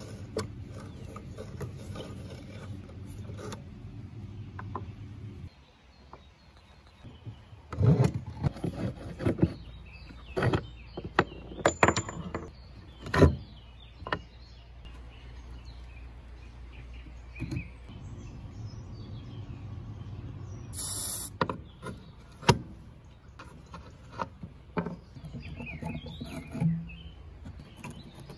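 Rusty iron fittings and screws being worked off an old wooden grain-scale beam by hand: scattered knocks, clicks and scrapes of metal on wood, in two busy spells. A low steady hum sits under the first five seconds, and a short hiss comes about 21 seconds in.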